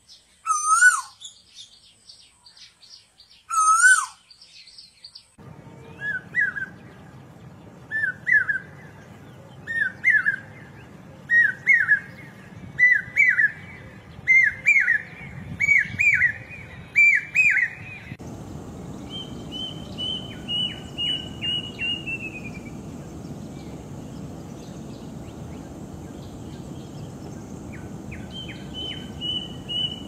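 An Asian koel calls for the first five seconds. It is followed by a common hawk-cuckoo's repeated rising phrases, about a dozen, each higher and louder than the last. Then comes a cuckoo's descending run of whistled notes, heard twice over a steady background hiss.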